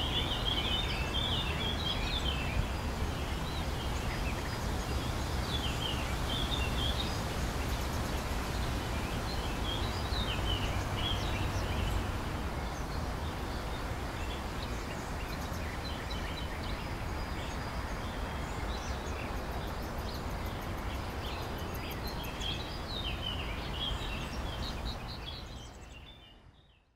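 Outdoor ambience: small birds chirping on and off over a low steady rumble, fading out near the end.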